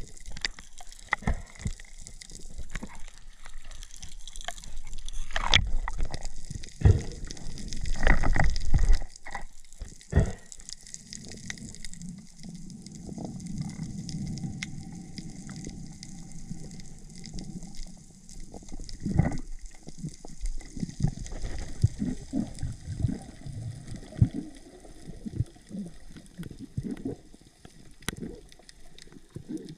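Water sloshing and gurgling around a camera held in the sea while a spearfisher swims, with irregular knocks and low thumps, loudest about seven to nine seconds in.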